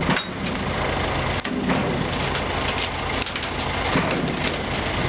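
Rough-terrain forklift's engine running steadily, with scattered knocks and clanks.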